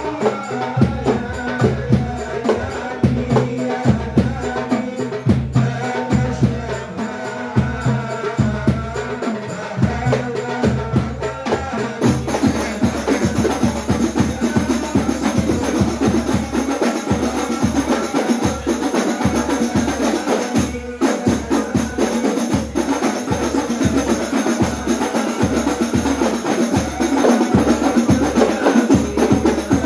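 Hadrah ensemble: rebana frame drums, a deep bass frame drum and a jingle tambourine beating a fast, steady rhythm under men singing through microphones. About twelve seconds in the drumming grows denser and brighter.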